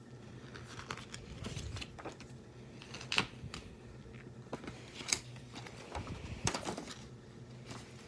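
Paper pages of a printed booklet being handled and turned: soft rustling with a scattered handful of light, sharp clicks.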